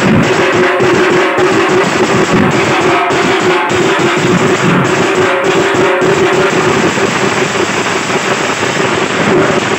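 Teenmaar folk drumming: several large stick-beaten band drums and a snare drum played together in a fast, dense, loud rhythm, with no break.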